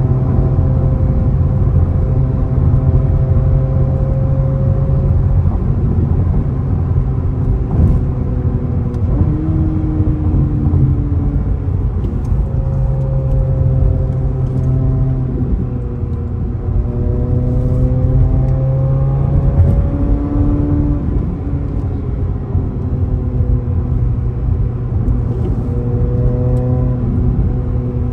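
Chevrolet C8 Corvette Z06's 5.5-litre flat-plane-crank V8 running at road speed, heard from inside the cabin over a steady low road rumble. The engine note drifts up and down a few times as the car slows.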